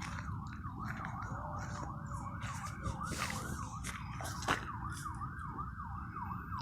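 Emergency vehicle siren in a fast yelp, rising and falling about four times a second, over a steady low rumble.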